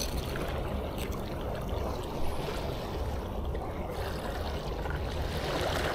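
Sea water washing and lapping at the shore, a steady noise over a low rumble, with one light knock about two seconds in.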